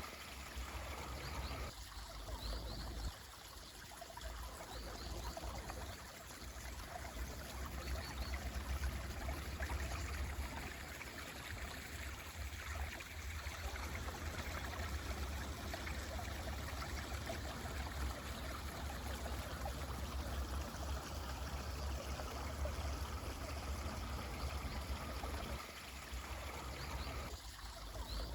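Mountain stream running steadily, with a few faint short high chirps now and then.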